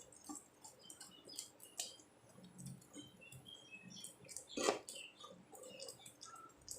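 Faint kitchen sounds from a pan of thickened cooking mixture: scattered small clicks, pops and light taps, with one louder knock about two-thirds of the way through.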